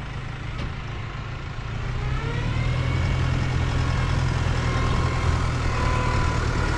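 New Holland loader tractor's diesel engine running as the tractor drives close past. It grows louder about two seconds in, with a rising whine as it picks up revs.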